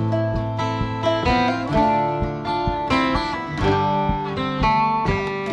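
Acoustic guitar and a teardrop-bodied mandolin-family instrument playing an instrumental break of an Irish folk song live, picked notes without singing.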